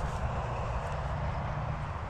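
Wind buffeting the microphone: a steady, uneven low rumble under an even rushing hiss, with no distinct footsteps or other events.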